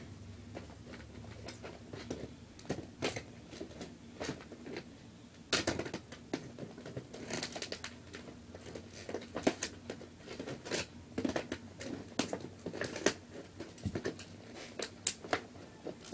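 Scissors snipping at toy packaging and its wire ties, with plastic and cardboard rustling between the cuts. Irregular clicks and snips, sparse at first and coming more often from about five seconds in.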